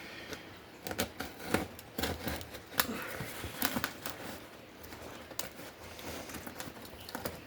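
Cardboard shipping box being handled and cut open: irregular sharp clicks, scrapes and rustles of tape and cardboard.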